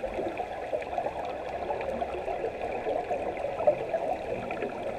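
Underwater sound on a scuba dive, heard through a camera's waterproof housing: a steady, muffled crackling and bubbling from divers' exhaled bubbles, with one sharper click a little over halfway through.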